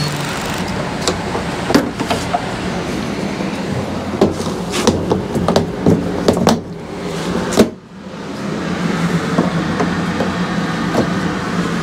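Diesel pump nozzle and hose being handled at a filling-station pump, with several sharp clicks and knocks over a steady mechanical hum. Near the end of the second third the sound drops out briefly, then a steady low hum carries on.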